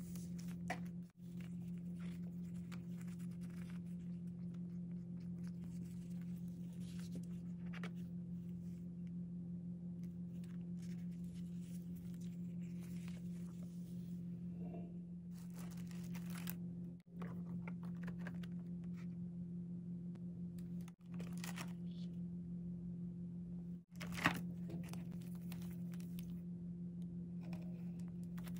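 Plastic sticker sheets and their clear plastic packaging rustling and crinkling as they are handled, with scattered sharp crackles, the loudest about 24 seconds in, over a steady low hum.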